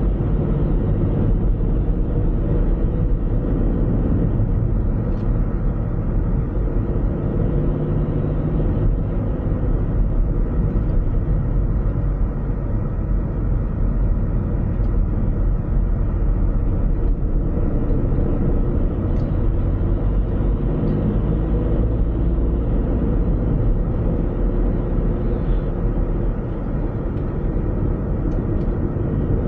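Car driving along a road: a steady low rumble of engine and tyre noise, the engine's pitch shifting a little now and then.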